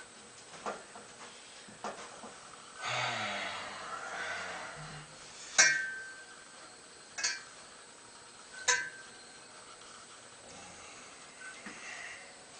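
Dumbbells clinking and knocking: several sharp metallic clanks. The loudest, about five and a half seconds in, rings briefly, and two more come over the next few seconds. Before them is a second or two of rustling and shuffling.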